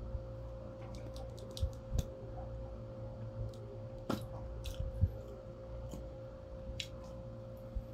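Eating sounds: scattered small clicks and mouth noises of chewing pizza, mixed with a plastic ketchup squeeze bottle being squeezed over the pizza, over a steady low hum.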